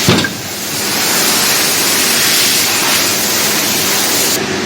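A loud, steady hiss that cuts off abruptly near the end, with a short sharp knock at the very start.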